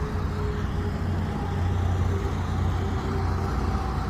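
Small crawler dozer's diesel engine running steadily close by, a low, even drone.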